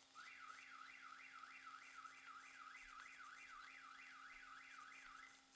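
Faint electronic siren, a tone sweeping up and down about three times a second, which stops shortly before the end.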